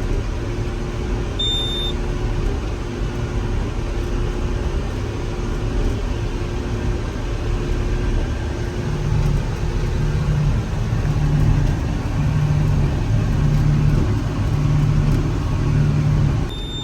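A tractor pulling a large square baler, heard inside the cab: a steady low engine drone with a hum that pulses about once a second as the baler works. A short high beep sounds about a second and a half in and again near the end.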